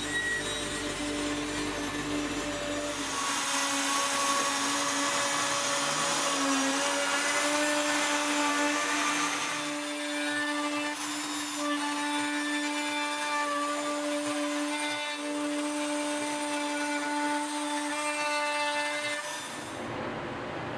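CNC router spindle whining steadily as its bit mills concentric grooves into an end grain wooden cutting board, with a hiss from the cut. The sound drops away shortly before the end.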